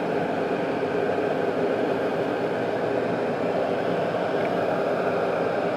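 Steady machinery noise: an even, unchanging hum with faint constant tones under it.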